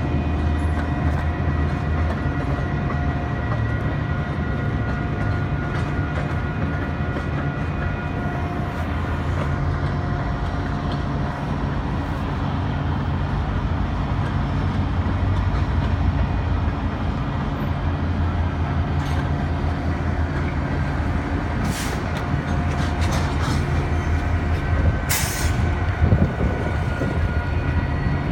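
Canadian National freight train of tank cars rolling past at a level crossing: a steady low rumble of wheels on rail, with several steady high tones over it. Sharp clanks come about 22 and 25 seconds in.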